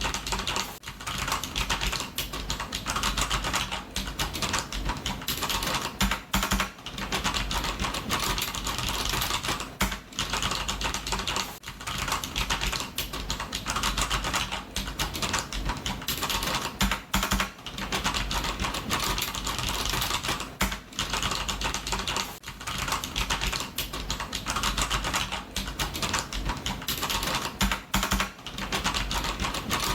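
Computer keyboard typing: a dense, continuous run of key clicks with short pauses here and there, keys struck hard.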